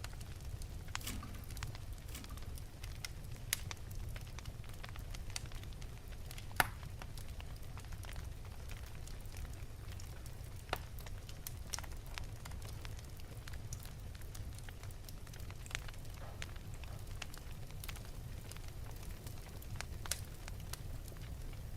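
Wood fire burning in an open fireplace: a steady low rumble of the flames with scattered sharp crackles and pops, one louder pop about six and a half seconds in.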